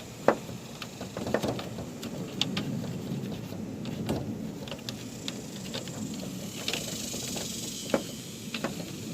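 Scattered clicks and knocks from handling and cleaning a window air conditioner unit, over a steady low background rumble, with a brief hiss about seven seconds in.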